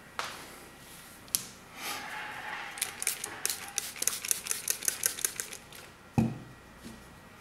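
Water spritzed from a spray bottle onto a natural sharpening stone in a quick run of squirts, about three a second, then a heavy thump of the bottle being set down about six seconds in.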